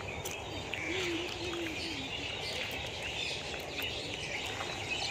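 Small birds chirping and twittering at random over a steady faint background hiss, with a faint low wavering call about a second in.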